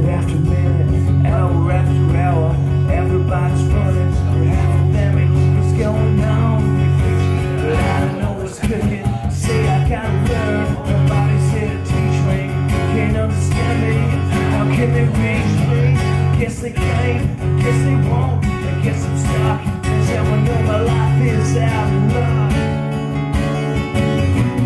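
Two acoustic guitars playing an instrumental passage of a rock cover: strummed chords and a melodic line over a steady low note held underneath.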